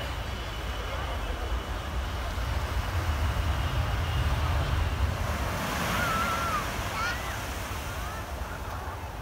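Small waves breaking on a sandy beach, with wind buffeting the microphone and giving a low rumble that swells in the middle and eases toward the end.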